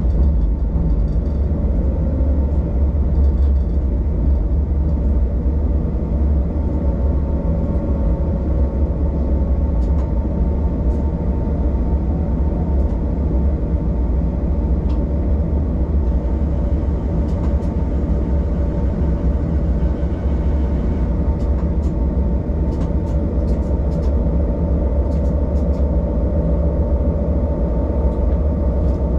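Diesel railcar running along the line, heard from the driver's cab: a steady low rumble of engine and wheels with a faint hum above it and a few light ticks in the latter half.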